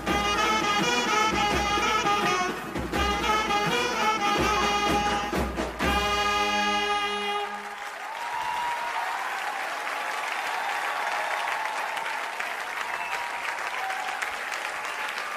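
Indian wedding-style brass band playing a lively tune with drums, ending on a held chord about seven seconds in. An audience then applauds and cheers.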